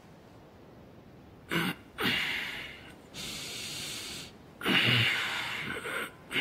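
A man breathing heavily and yawning as he wakes and stretches in bed: a few breathy snorts and exhales start about a second and a half in, and the loudest is a long, groaning yawn near the end.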